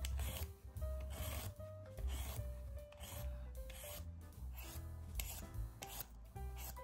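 Y-shaped vegetable peeler scraping strips of skin off a cucumber, one stroke about every second, over soft background music.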